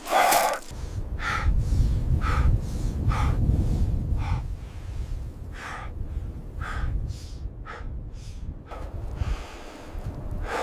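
Heavy breathing in short puffs, roughly one a second, over a low steady rumble.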